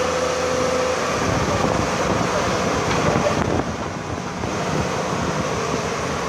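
Excavator's diesel engine running with a steady mechanical rumble as the machine works, dipping a little about three and a half seconds in.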